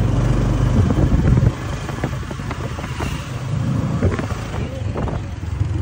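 A motorized tricycle's motorcycle engine runs under way, a steady low hum heard from the sidecar, easing off about a second and a half in. Short knocks and rattles from the ride come through over it.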